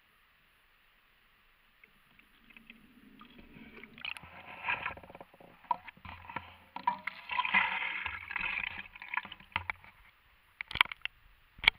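Water splashing and sloshing against an action camera's waterproof housing as it is lifted out of icy lake water onto the ice, with rubbing and handling noise on the case. Two sharp clicks on the housing come near the end.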